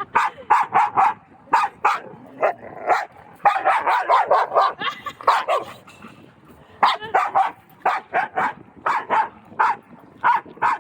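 Dogs barking in quick, repeated runs of sharp barks, densest a few seconds in, with a brief lull around the middle.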